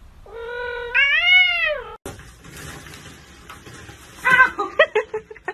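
A cat's long, drawn-out meow, held steady and then rising and falling in pitch, lasting about a second and a half. Near the end come several short, sharp cries.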